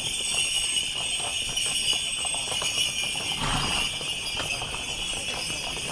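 Harness bells on parading horses jingling steadily as they walk, with hooves clopping on asphalt.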